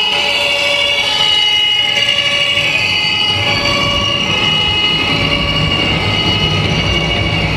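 Electronic sound modules of radio-controlled model trucks: a low engine drone that grows louder about five seconds in as a truck passes close, under several steady overlapping whistling tones.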